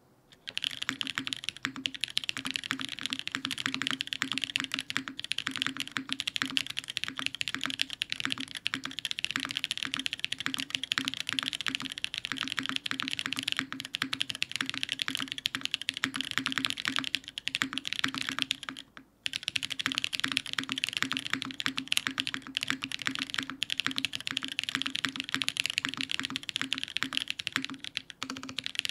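Fast continuous typing on a mechanical keyboard: yoot Elite TKL with lubed Bolsa Corsa tactile switches on an aluminium full plate and GMK keycaps, a dense stream of key clacks. Typing starts about half a second in and breaks off briefly about two-thirds of the way through.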